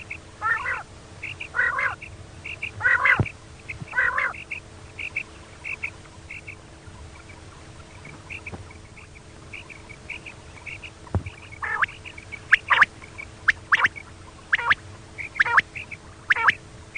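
Female quail calling, a lure call for quail hunting: short calls about once a second at first, softer high chirps repeating through the middle, then sharper calls again near the end, over a faint steady hum.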